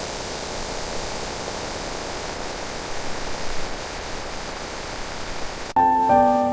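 Steady rain, an even hiss, which cuts off suddenly near the end as soft piano notes begin.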